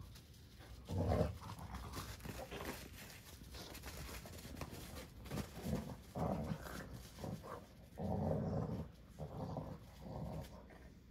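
A puppy and an older dog wrestling, growling in short, irregular bursts, with a longer growl about eight seconds in.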